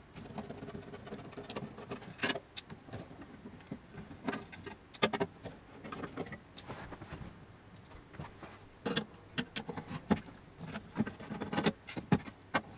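Irregular light clicks, taps and knocks of a screwdriver and metal parts being handled while screws are taken out of a metal control box.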